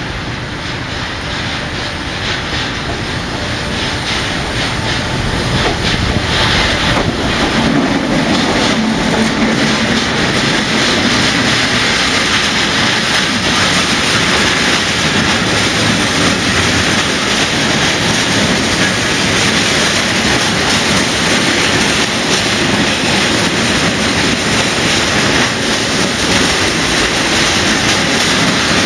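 Freight train of covered hopper wagons passing close by on the nearest track: the rumble of wheels on rails grows over the first five or six seconds as the train comes in, then holds as a steady, loud rush of passing wagons.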